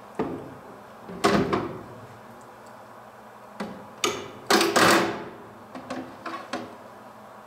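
Metal tools and parts clanking and rattling in a red metal tool box as they are moved around and lifted out: a handful of separate knocks and clatters, the longest cluster about halfway through, then a few light clicks.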